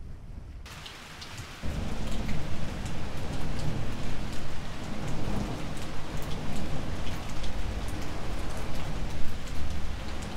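Rainstorm setting in: after a quieter stretch of wind, a hiss of rain with scattered drop ticks comes in about half a second in. A heavy low rumbling joins about a second later and keeps on underneath the rain.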